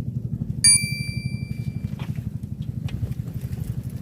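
A small engine running with a steady, rapid thumping. About half a second in, one bright metallic ding rings out for over a second.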